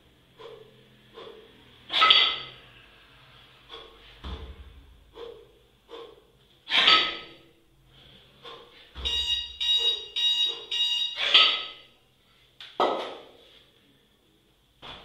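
Heavy, sharp exhales a few seconds apart as two kettlebells are jerked overhead, with a few low thuds. Past the middle, a workout interval timer beeps rapidly for about two seconds.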